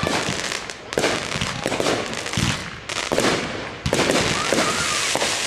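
Aerial fireworks bursting: a string of sharp bangs, the loudest coming about a second or two apart, with crackling between them.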